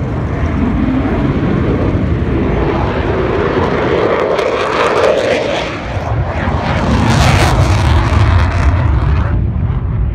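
Jet engines of Blue Angels F/A-18 Hornets running as they taxi, a loud, steady roar with a high whine that grows louder in the second half.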